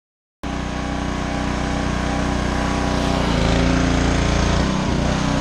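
Pressure washer running and spraying, starting suddenly about half a second in; a steady motor drone under a hissing water jet, its pitch shifting a couple of times as the load changes.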